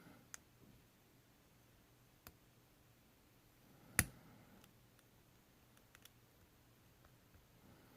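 Faint, sparse clicks of a lock pick and tension wrench working the pin stack of an ASSA Ruko 2 padlock, with one sharper click about halfway through.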